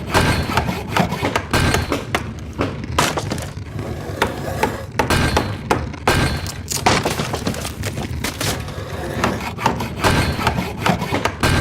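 Sawmill at work: a dense, irregular clatter of wooden knocks and cracks over a continuous rumble.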